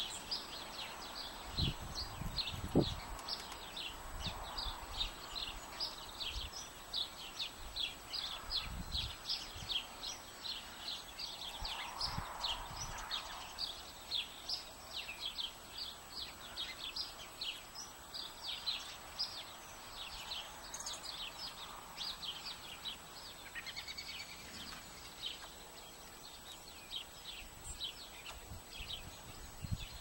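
Small songbirds chirping: a steady run of short, high chirps, two or three a second, that thins out in the last several seconds. A few soft low thumps come in the first few seconds.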